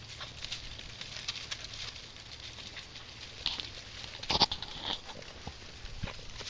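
Beagle pushing through dry brush and briars: a steady patter of crackling and snapping twigs and dry grass, with one louder, short sound about four and a half seconds in.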